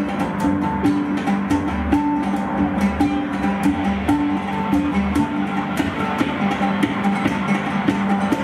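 Live ensemble music: an oud plucked over a Roland Juno-6 synthesizer and piano, with short notes repeating in a steady figure.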